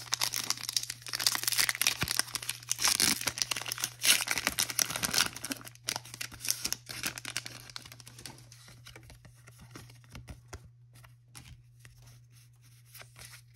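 Foil wrapper of a Pokémon Crown Zenith booster pack being torn open and crinkled, loudest over the first several seconds. After that it settles into quieter rustling as the cards are slid out and handled.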